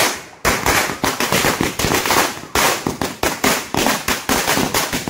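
A long string of firecrackers going off in a rapid, uneven chain of sharp bangs.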